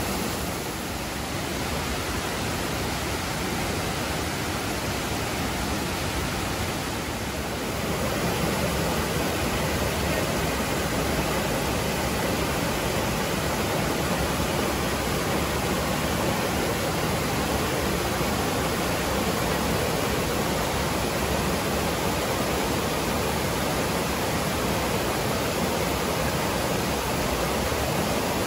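River water rushing and cascading beneath a kawadoko dining platform built over the Kibune River, a steady full rush that grows a little louder about seven seconds in.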